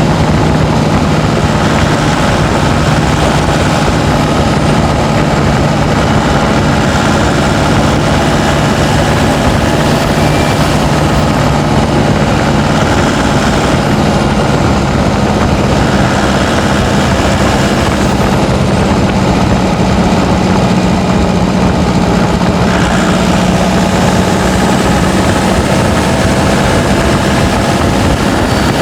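Turbocharged pickup truck engine running steadily under load while driving, a constant drone whose pitch creeps slightly higher partway through, over continuous road noise.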